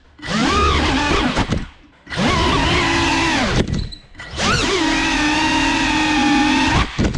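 GEPRC CineLog35 cinewhoop's brushless motors and propellers whining, the pitch rising and falling with the throttle. It comes in three long bursts with short drops to near quiet between them, and cuts off suddenly near the end.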